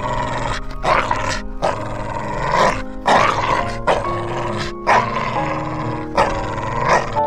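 Dog barking repeatedly, about once a second, over background music.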